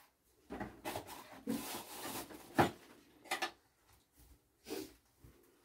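Rubbing and scraping of household objects being handled, with a sharp knock about two and a half seconds in and a couple of lighter knocks after.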